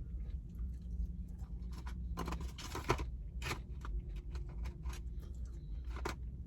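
A person chewing food, with a few short crunchy or rustling noises, over a steady low hum.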